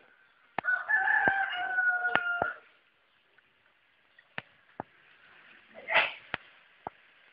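Rooster crowing once, a single drawn-out call of about two seconds, slightly falling in pitch at the end. A few scattered clicks follow, and a short loud sound comes about six seconds in.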